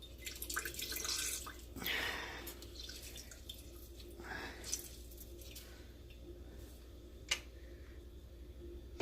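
A lemon squeezed by hand, its juice dripping and splashing into a jar in a few short, irregular bursts, with one sharp click past the middle.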